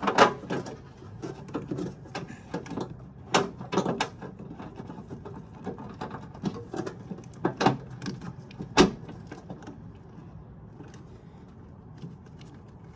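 Irregular plastic clicks and knocks as an electrical connector is plugged back in and parts are handled and pushed into place under the cowl, with the sharpest snap about nine seconds in.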